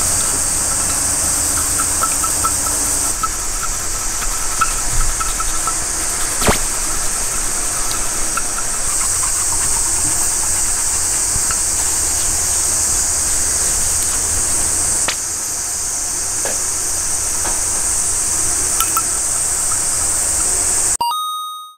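A cloth polishing a small metal sierra cup with Pikal metal polish, with scattered light clicks and squeaks over a steady high hiss. The sound cuts to silence near the end.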